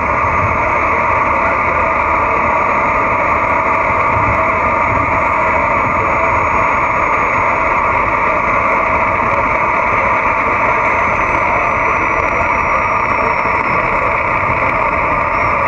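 Cobra 148 GTL CB radio receiving lower sideband on the 11-meter band, its speaker giving a steady rush of static with no station transmitting.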